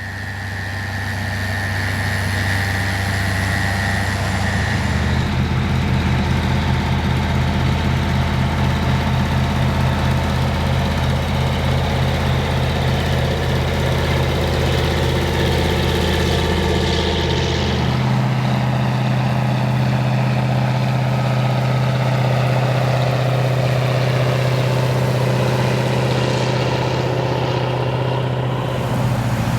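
Big diesel engines of classic articulated four-wheel-drive tractors working hard under plough load as they draw past one after another. A loud, steady drone whose deep note shifts in pitch twice, about five and eighteen seconds in.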